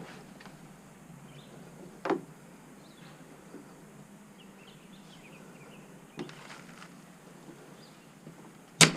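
Three sharp, short knocks or snaps over a quiet background: one about two seconds in, a fainter one about six seconds in, and the loudest near the end.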